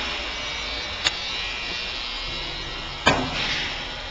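Two sharp clicks about two seconds apart, the second louder, as the lock disc and angle-setting parts of a saw top-and-face grinder are handled. A steady electric buzz runs underneath.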